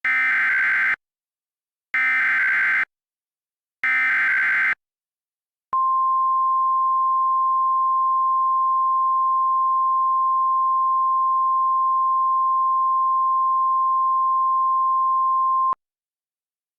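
Emergency Alert System SAME header from NOAA Weather Radio: three short bursts of warbling digital data tones, each about a second long, then the steady single-pitch 1050 Hz warning alarm tone held for about ten seconds, signalling that a new severe thunderstorm warning is about to be read.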